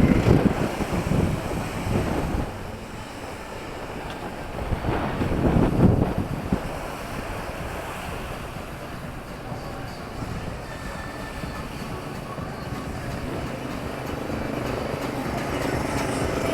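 Town street traffic: a steady rumble with two vehicles passing close, one at the start and another about five seconds in, and wind buffeting the microphone.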